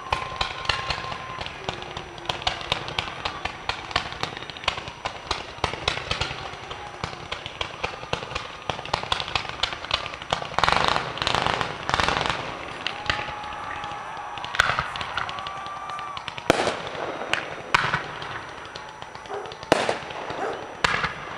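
Fireworks display: ground fountains crackle densely without a break, and louder bangs start about halfway through as shells go off.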